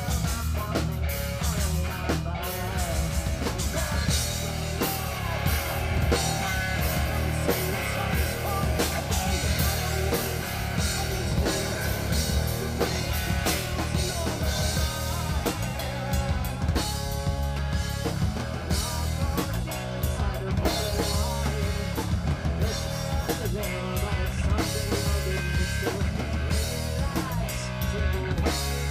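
Live hard rock band playing loudly: pounding drum kit with bass drum and cymbals driving a steady beat under amplified electric guitar.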